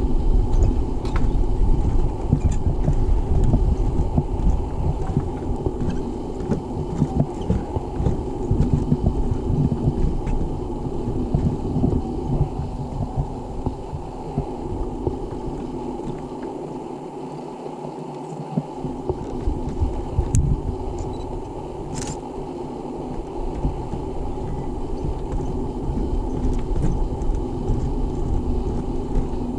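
Wind buffeting the microphone: a low, uneven rumble that eases briefly a little past halfway, with a single sharp click about 22 seconds in.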